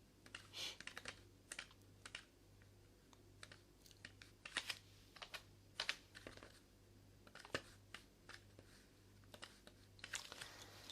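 Faint, irregular light clicks and taps, a few a second and uneven in spacing, over a steady low electrical hum.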